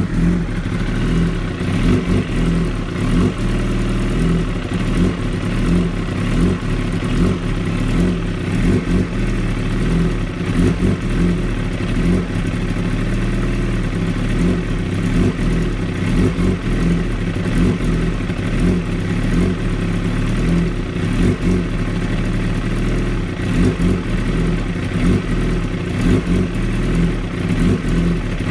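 2016 Kawasaki ZX-10R's inline-four engine at a very rough idle, running with irregular, uneven pulses and stumbles rather than a smooth steady beat.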